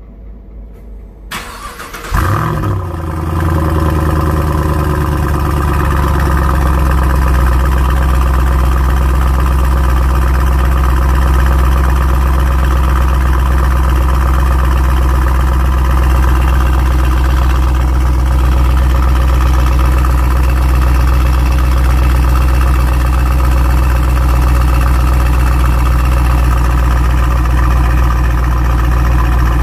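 2017 Chevrolet SS's 6.2-litre LS3 V8 cranked and starting about two seconds in, flaring briefly and then settling into a steady, loud idle through its exhaust.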